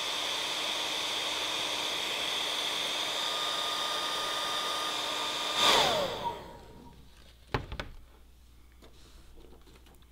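Handheld hair dryer blowing steadily with a constant whine over the rush of air, heating a glued seam; about six seconds in it is switched off and its whine falls away as the motor spins down. Two short knocks follow a couple of seconds later.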